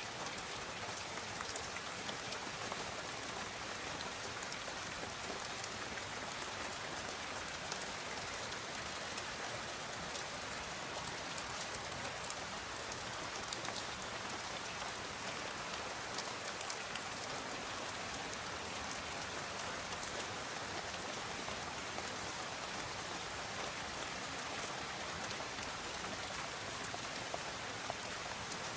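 Steady rainfall, an even hiss of rain with single drops ticking through it.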